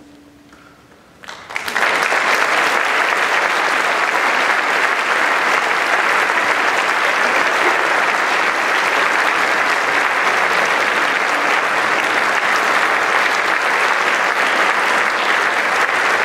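After a brief quiet, an audience starts applauding about a second and a half in and keeps clapping steadily.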